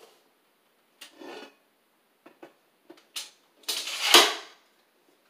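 Small hard parts and tools clattering and clicking as they are handled, in short separate bursts, with a louder clatter and one sharp knock about four seconds in.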